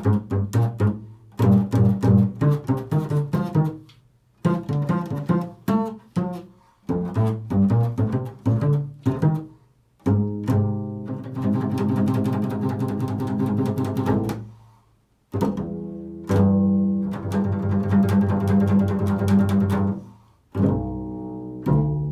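Solo acoustic double bass plucked pizzicato in an improvised line. Short, separate plucked notes and quick phrases give way about ten seconds in to longer, held notes.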